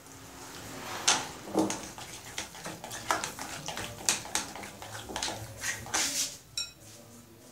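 A bare hand mixing a wet flour-and-cornstarch batter in a glass bowl: irregular scraping and squishing with sharp clicks and knocks against the glass, the loudest about a second in. A brief high squeak about six and a half seconds in.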